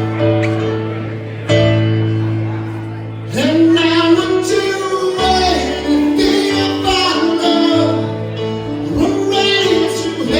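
Live band music: held keyboard chords over a steady bass note, with a singer's voice coming in about a third of the way through and carrying the melody over the chords.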